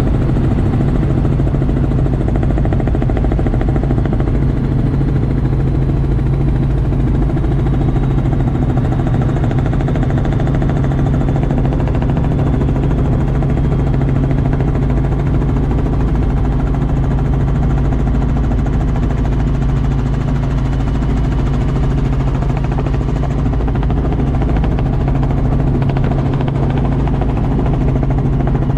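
Helicopter engine and rotor drone heard inside the cabin in level flight: a steady, loud low hum that holds an even pitch.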